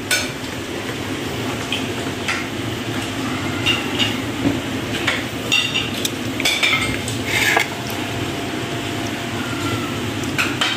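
Plates and bowls clinking and knocking now and then against each other and the tile floor as people eat, over a steady background hum.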